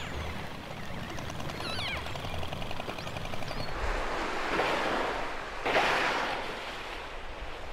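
Killer whale calls: a few high whistles sliding down in pitch and a rapid buzzing pulsed call. Then a rush of water and a loud, breathy blow as a killer whale surfaces and exhales.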